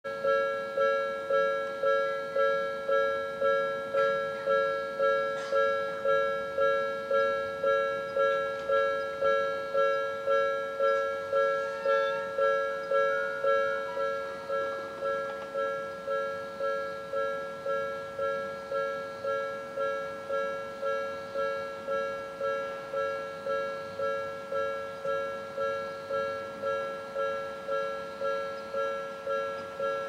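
Japanese level-crossing alarm: an electronic warning bell ringing in a steady repeating tone, about two strokes a second. It drops noticeably in volume about halfway through and keeps ringing.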